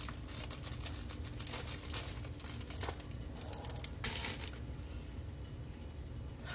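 Plastic seafood-boil pouch crinkling and rustling as it is handled, with scattered small crackles and a louder rustle about four seconds in.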